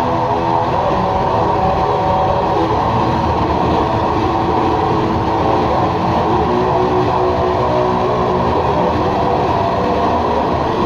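Experimental drone music: a dense, unbroken wall of held, slowly shifting tones over a churning low rumble that sounds train-like.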